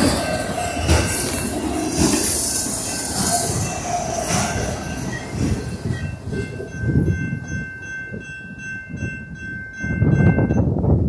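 Freight train of autorack cars rolling past a grade crossing, with wheel squeal and clicking over the rail joints. As the train noise fades about six seconds in, the crossing's warning bell rings steadily, then stops shortly before the end.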